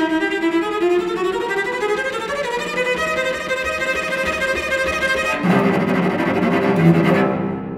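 Solo cello, bowed: a high sustained note slowly glides upward and holds, then about five seconds in it breaks into a lower, rougher-toned passage that dies away near the end.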